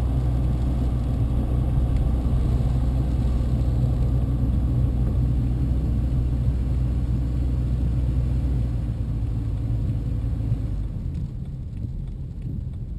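BMW E90 on the move: a steady low rumble of road and drivetrain noise, which drops away about ten seconds in.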